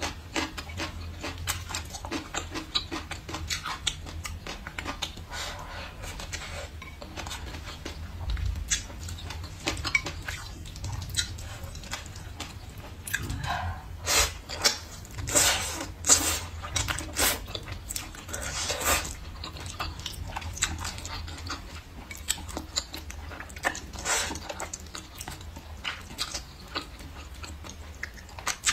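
Close-miked eating sounds: wet chewing and lip smacking in short, frequent clicks, with louder slurps of braised glass noodles about halfway through.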